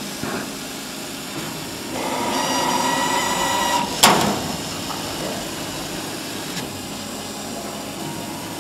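CO2 laser cutting machine running, a steady hiss of machine noise with a whining tone from about two seconds in. A single sharp knock at about four seconds is the loudest sound.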